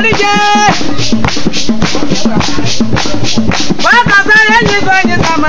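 Grebo women singing a celebration song over a steady percussion beat of about four strikes a second. The voices stop about a second in, leaving the percussion alone, and come back in near the fourth second.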